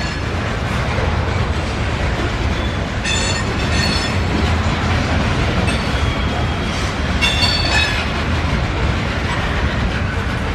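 Train rolling by with a steady low rumble. Brief high-pitched wheel squeals come twice, about three seconds in and again about seven seconds in.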